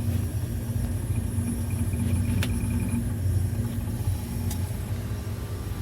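Steady low machine hum of running refrigeration equipment, with one faint click partway through.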